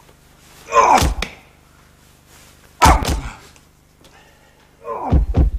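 Three heavy thumps, about two seconds apart, the middle one sharp and sudden.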